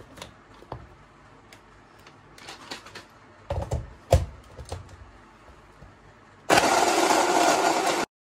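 Plastic clicks and knocks as the blade lid and bottle of a personal bottle blender are handled and set onto the motor base, the loudest about three and a half and four seconds in. Then, from about six and a half seconds, the blender's motor runs loud and steady, blending milk, pineapple and ice, and cuts off suddenly near the end.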